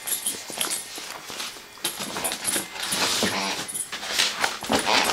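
Puppy in a cone collar playing close to the microphone: scuffling, clicks and knocks, with a short whimper about three seconds in.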